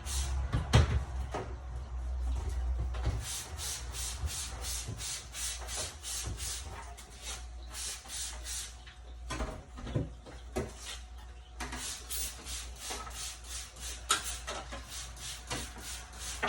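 Rhythmic hand scrubbing on a dehumidifier part, a quick back-and-forth rubbing at about three strokes a second with a couple of short pauses, over a steady low hum.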